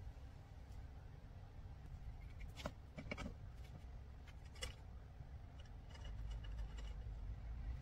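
Light handling noise of wooden furniture parts: a few short knocks and clicks as a curved wooden bracket is fitted against a turned wooden table leg, over a low steady hum.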